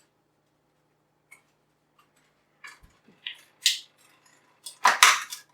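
A few short, sharp clacks and rustles of kitchen items being handled, starting about two and a half seconds in, the loudest near the end.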